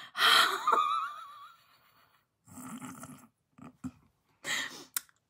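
A woman laughing: a loud breathy burst at the start with a thin wavering squeal in it, then a few quieter breathy laughs.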